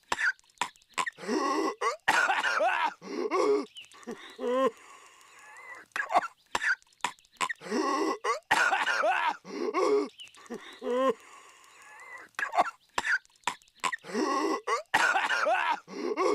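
Cartoon voice of Patrick Star coughing violently: harsh hacking coughs mixed with strained, wheezy voiced gasps. The same few-second coughing fit repeats about every six and a half seconds.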